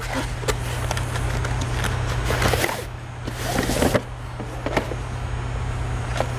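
A cardboard box scrapes and rustles for about two and a half seconds as a fabric roll of combination wrenches slides out of it. The roll is then handled and set on a steel bench, with a few short knocks from the wrenches inside.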